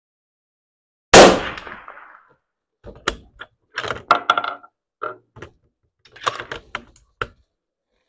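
A single .308 Winchester rifle shot about a second in, loud and echoing as it dies away. A series of short metallic clicks and clacks follows as the bolt is worked to eject the spent case and chamber the next round.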